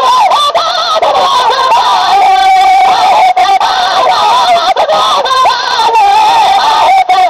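Singing of a Sindhi molood, a devotional song in praise of the Prophet, in a drawn-out ornamented melody, with a long wavering held note from about two to four seconds in.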